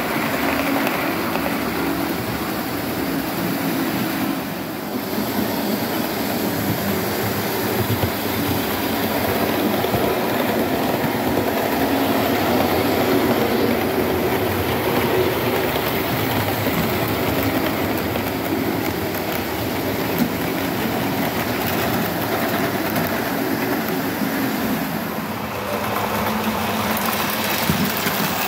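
Model trains running on a model railway layout: the steady whirr of small locomotive motors and the wheels running over the track.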